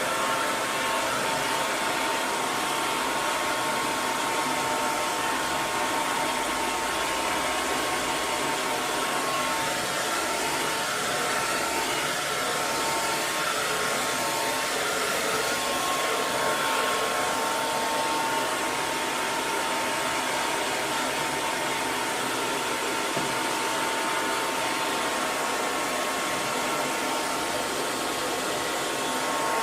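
Hair dryer running continuously at a steady speed: an even rush of blown air with a faint steady motor whine.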